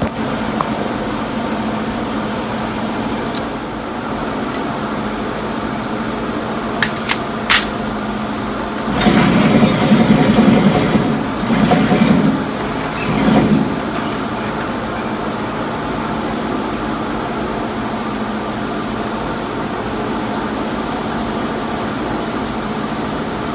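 Steady mechanical hum of fans or ventilation, with two sharp cracks close together about seven seconds in and a louder, rougher stretch of noise from about nine to fourteen seconds.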